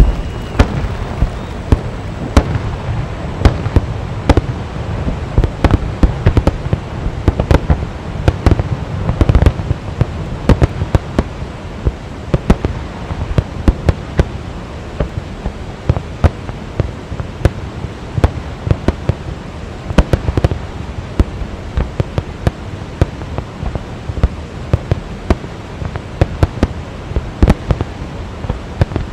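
Fireworks display: a long, irregular barrage of sharp bangs from exploding aerial shells, a few a second, over a steady low background noise.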